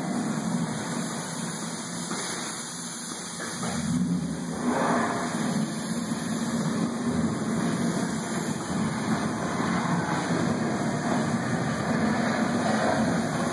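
Steady low mechanical rumble and hiss, engine-like, a little louder from about four seconds in.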